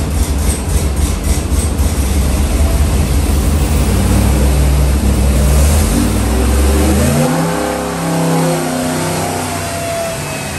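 Supercharged 427-cubic-inch LS V8 with a 3.0-litre Whipple supercharger, loud under load on an engine dyno during a pull. It runs as a heavy, steady low rumble for the first seven seconds or so, then its revs climb steadily, with a rising whine joining near the end.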